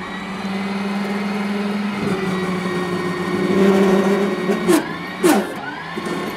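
Electric mini loader's hydraulic pump motor whining steadily as the loader arm and bucket are worked, its pitch dipping sharply and recovering twice about five seconds in as the load changes.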